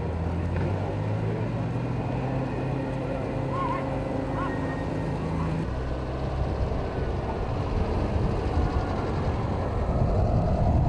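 A car engine running steadily at idle. About six seconds in its note changes to a rougher, slightly louder low rumble.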